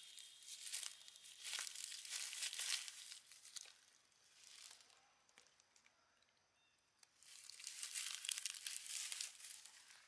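Dry leaf litter crackling and rustling as a long-tailed macaque moves and forages through it, in two spells with a quieter gap in the middle.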